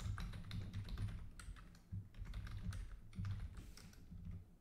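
Typing on a computer keyboard: an uneven run of quick key clicks that thins out near the end.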